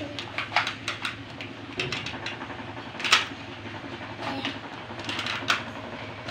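Irregular clicks, taps and small rattles of plastic toys being handled, over a steady low hum.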